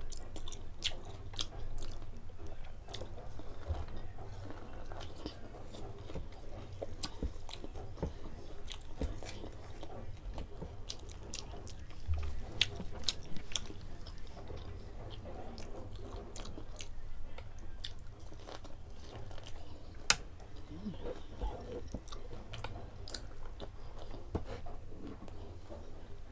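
A person chewing and crunching crispy fried pork belly (lechon kawali) and rice, with many scattered sharp crunches.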